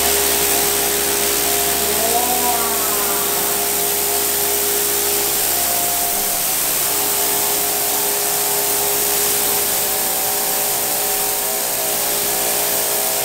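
Pressure washer running steadily, the hiss of its water jet spraying onto a concrete floor over a continuous motor hum.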